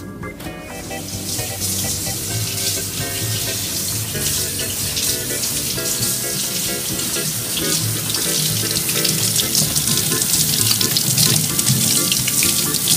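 Kitchen faucet running into a stainless-steel sink while hands are rubbed and rinsed under the stream. The rush of water starts about a second in and then holds steady.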